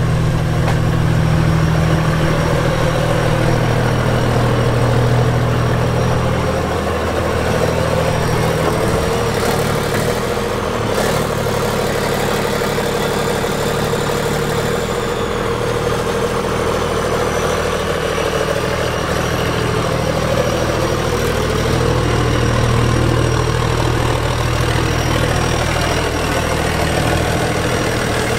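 Diesel excavator engine running steadily, its note shifting a little at times as the machine works, with a short knock about a third of the way in.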